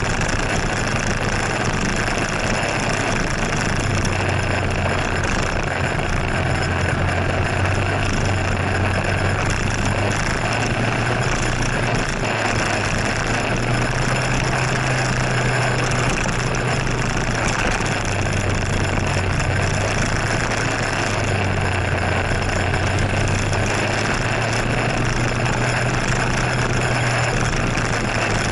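Scooter engine running while riding, its low drone stepping up and down in pitch every few seconds as the speed changes, under a steady rushing noise.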